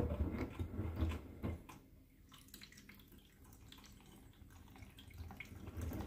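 Bosch Serie 6 front-loading washing machine drum tumbling a carpet, with water and suds sloshing against the door glass during the wash phase after heating has finished. The sloshing dies down about two seconds in and picks up again near the end.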